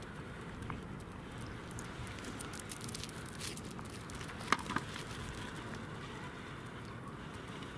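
Corgis' claws clicking and scratching on frozen lake ice as they walk, with two sharper ticks about four and a half seconds in.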